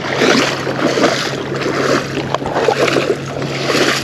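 Legs wading through shallow saltwater, sloshing and splashing in irregular surges, with wind on the microphone.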